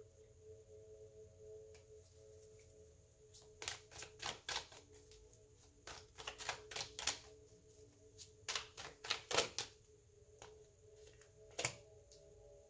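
Tarot cards being shuffled by hand: several short runs of crisp card clicks and snaps, with one last snap near the end. Faint steady tones hum underneath.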